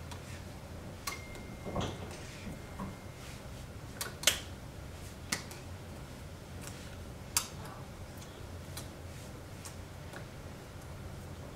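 Scattered small clicks and taps from a person signing, hands meeting each other and her top, over a steady low hum.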